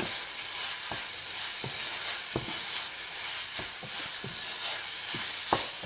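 Minced meat with onions and spices sizzling in a non-stick sauté pan as a wooden spatula stirs it, the spatula knocking and scraping on the pan about once or twice a second over a steady frying hiss.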